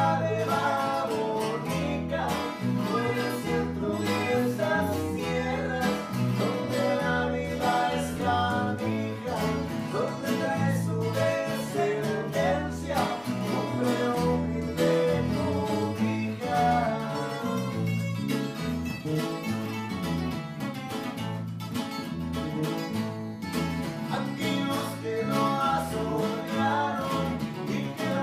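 A small string band playing música campirana: strummed guitars over a bass line that steps between notes in a steady beat, with a melody line on top.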